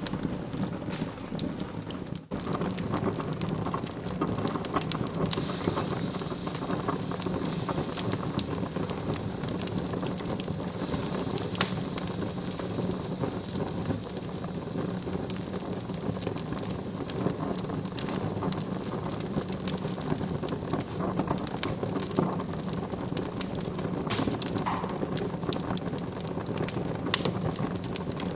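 Wood fire in a fireplace crackling, with many sharp pops over a steady rustle. A brief dropout comes about two seconds in, and a high hiss rises about five seconds in and fades around fourteen seconds.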